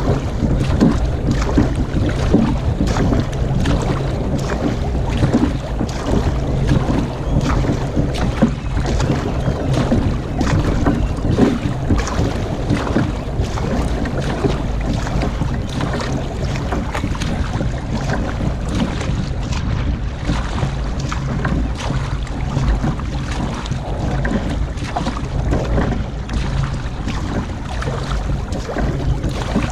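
Sprint kayak being paddled with a wing paddle: repeated splashes of the blades entering and leaving the water and water rushing past the hull, under steady wind buffeting on the deck-mounted camera's microphone.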